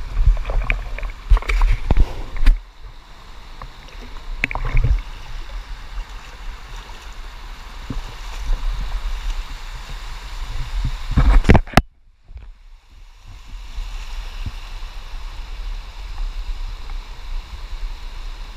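Creek water running and splashing, with heavy knocks and rumbles in the first few seconds and again just before twelve seconds. The sound cuts off sharply about twelve seconds in, then settles into a steady rush of water.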